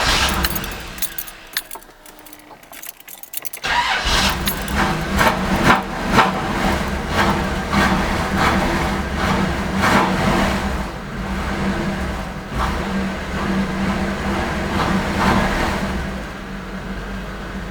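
1988 Camaro IROC's 350 TPI V8 being cranked by the starter, then catching about three and a half seconds in and running. It settles to a steadier idle near the end.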